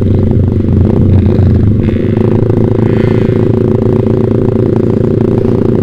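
Yamaha Vixion's single-cylinder four-stroke engine breathing through a Proliner TR1 short aftermarket exhaust, running at a fairly steady pace while the bike is ridden.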